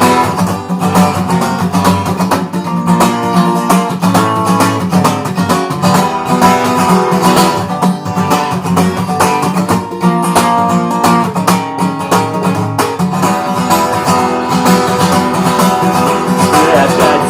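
Guitar music with no singing: an instrumental passage of a song, the guitar playing steadily throughout.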